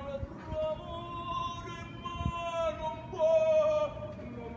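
An opera singer singing operatically in the street, carrying up to a balcony above. The voice holds long notes, and the loudest comes about three seconds in.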